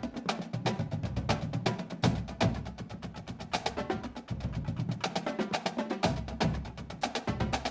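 Instrumental background music with a steady drum beat, sharp wood-block-like percussion hits and a bass line.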